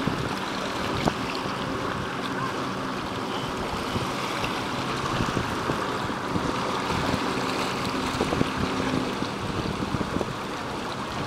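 Steady wind and choppy river water lapping at the shore, with a distant motorboat's engine droning low underneath.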